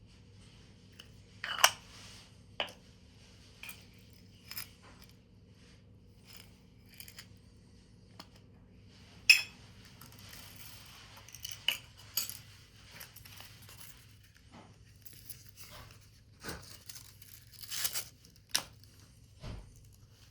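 Paper and thin card being handled: irregular rustles, short tearing or scraping sounds and sharp taps, the loudest about a second and a half in, midway, and near the end.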